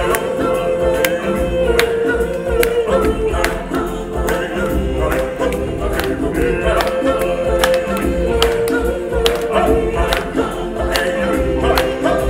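A choir of voices singing held notes over music, with a steady percussion beat of roughly one strike a second.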